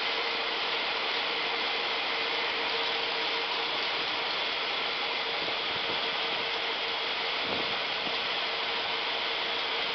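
Steady running noise of cord-braiding machinery: an even mechanical hiss with a constant hum, unchanging throughout.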